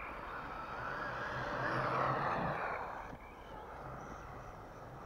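WLtoys A929 RC buggy's electric motor and drivetrain whining as it drives across snow, swelling to a peak about two seconds in and fading away by about three seconds.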